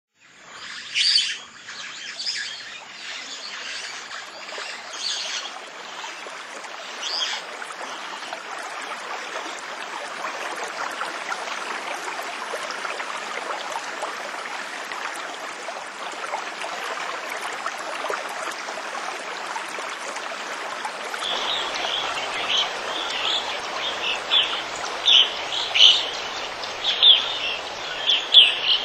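Waterfall with a steady rush of water and birds calling over it. From about 21 seconds in, a bird repeats a short chirp roughly once a second.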